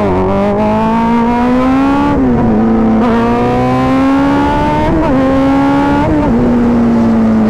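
Kawasaki Z900's inline-four engine accelerating hard through the gears: the pitch climbs, drops sharply at three upshifts about two, five and six seconds in, and then the engine runs on at high revs, easing slightly.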